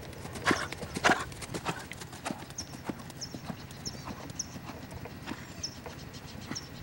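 Hoofbeats of a ridden Lusitano stallion moving on sand arena footing, a run of uneven thuds with the loudest about a second in.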